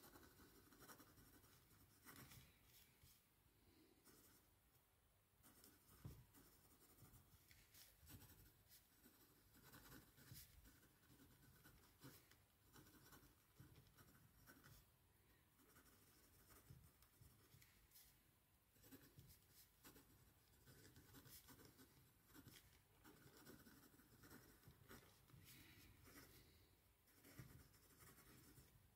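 Faint scratching of a pen on paper: handwriting in short, irregular strokes, with one small knock about six seconds in.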